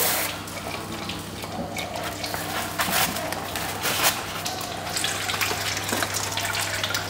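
Water sloshing and splashing in a bowl with scattered small knocks, as ground shrimp is mixed with plain water and strained by hand for soup. A steady low hum runs underneath.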